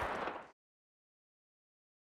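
The fading echo tail of a single gunshot sound effect, dying away and cutting off about half a second in, followed by dead digital silence.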